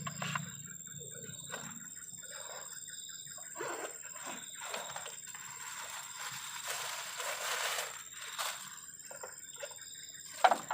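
Crickets calling in a thin, steady high trill, with scattered soft knocks of handling and a noisy rustle lasting about a second and a half, about two thirds of the way through.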